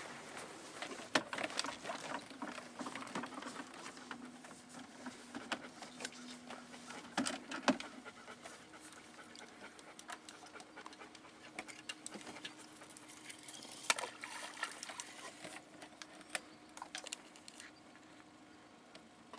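Electric trolling motor running on low with a faint steady hum, under scattered clicks and short handling knocks from the fishing gear, the loudest at about 7 and 14 seconds in.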